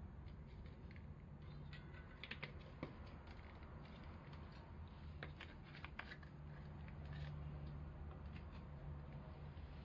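Faint clicks and light plastic knocks of a bottle of fuel alcohol being handled and set aside after filling a small alcohol burner, over a steady low hum.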